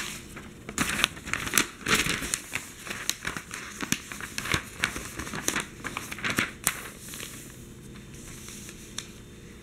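Large newsprint pages rustling and crinkling as a newspaper page is turned and folded over by hand. The handling dies down after about seven seconds, with one light tap near the end.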